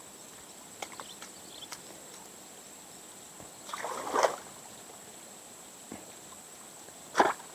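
Two wet splashes in shallow water, one about four seconds in and a shorter one near the end, with a few faint clicks before them and a faint steady high tone behind.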